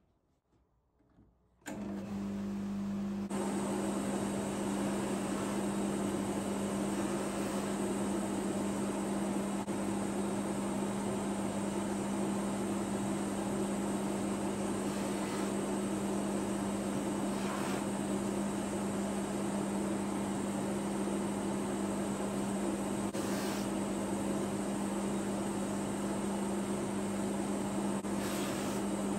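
Polishing motor with a fine buffing mop starting up about two seconds in, then running steadily with a humming tone while a gold-capped watch case is buffed with rouge compound.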